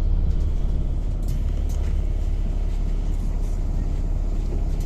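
Scania Citywide LF city bus running with a steady low rumble, with a couple of light clicks about a second and a half in.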